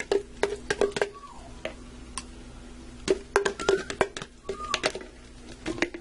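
Sharp clicks and knocks of a utensil against a mayonnaise jar and a plastic mixing bowl, with squelchy plops, as thick mayonnaise is scooped out and knocked into the bowl. The sounds come in two bursts, one in the first second and another from about three to five seconds in.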